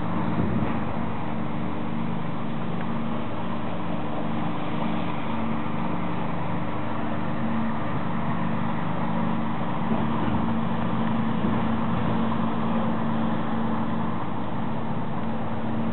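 Steady drone of a passenger motor ship's engine (a single 265 kW unit) heard on board while under way, with a constant hum and the rush of water and air.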